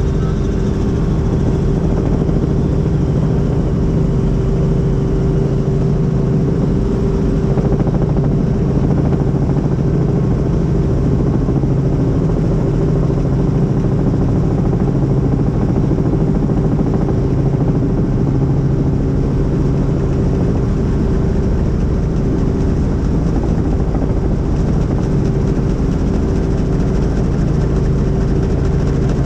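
Helicopter engine and rotor running steadily: a loud, even hum with constant tones that hold without change.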